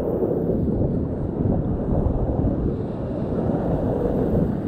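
Rushing whitewater of a river rapid, a steady low rumbling rush, with wind buffeting the microphone.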